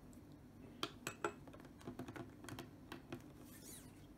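Quiet handling sounds of a marker pen and a thin clear plastic sheet on a tabletop: a few light clicks and taps, then a short rustle of the sheet a little over three seconds in.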